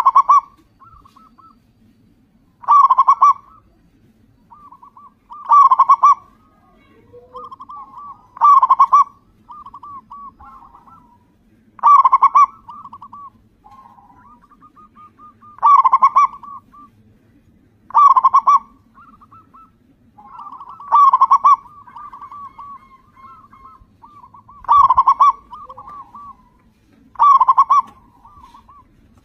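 Zebra dove (local Indonesian perkutut) singing: about ten loud cooing phrases, one every two to four seconds, with softer rolling coo notes in between.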